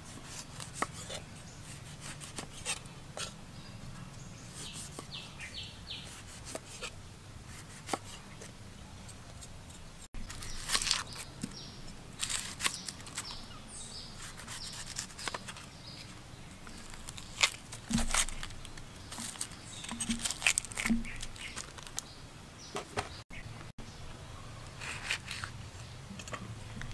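Knife cutting food on a thick wooden chopping board: irregular knocks of the blade on the wood and crisp slicing as limes, an onion and chillies are cut, over a low steady hum.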